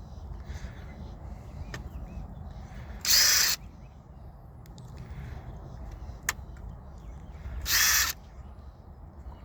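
Hammer drill boring into a concrete footer in two short bursts of about half a second each, a few seconds apart, with a single sharp click between them.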